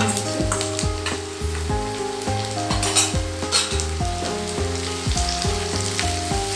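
Diced onions and chopped tomatoes sizzling in hot oil in a non-stick pan while a spatula stirs them, with a few louder scraping, crackling strokes about three seconds in. Soft instrumental music with held notes plays underneath.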